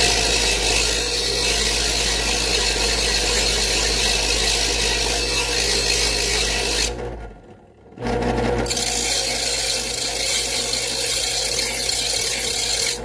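An electric knife sharpener's motor runs while a dull bread knife is drawn through its slot, the blade grinding against the sharpening wheels with a steady hum and a bright rasp. The sound stops about seven seconds in and starts again a second later for another pass.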